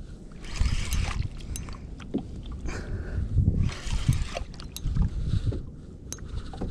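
Water lapping and sloshing against a kayak hull, with wind rumbling on the microphone and a few light clicks and knocks.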